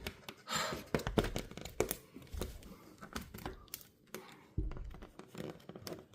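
Irregular plastic and metal clicks, knocks and rattling as a window blind's headrail is forced against its mounting bracket without snapping in, with a brief rustle about half a second in and a few dull thumps.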